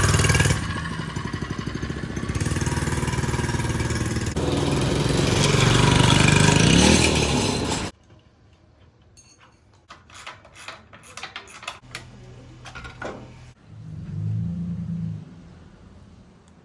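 A 224 cc mini bike engine running and revving for about eight seconds, its pitch climbing near the end, then cutting off abruptly. After that come scattered light clicks and knocks.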